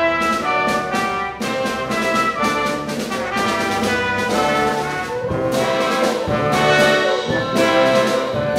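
Mixed wind ensemble of woodwinds, brass, percussion and guitar playing contemporary classical music, with brass chords to the fore and frequent short accented attacks.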